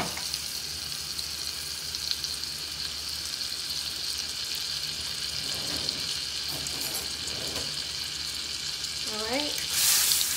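Butter and olive oil sizzling steadily in a cast iron skillet. Near the end a utensil stirs the melting butter around the pan and the sizzling gets louder.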